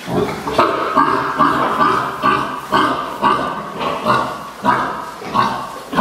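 Pigs in a sty calling, with short, loud calls coming about twice a second.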